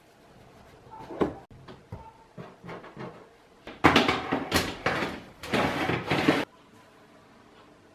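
A metal baking tray scraping as it is pushed into an oven along the rack runners, in three loud pushes starting about four seconds in. Before that, a few soft knocks.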